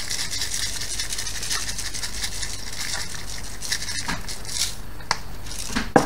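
Sprinkles rattling in a plastic shaker tub as it is shaken over an iced tray bake, a fast run of fine ticks that thins out about halfway, followed by a sharp knock near the end.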